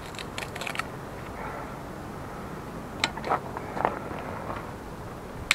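Sticks of firewood being knocked and cut with a knife beside a small wood fire: a quick run of light clicks at first, a few sharper knocks about three to four seconds in, and one loud crack at the end.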